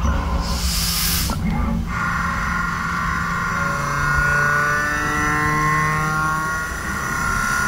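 CNC machine's boring tool cutting inside a metal ring, giving a steady high-pitched ringing squeal of several tones that slowly shift in pitch, over the machine's running rumble. A short hiss comes near the start.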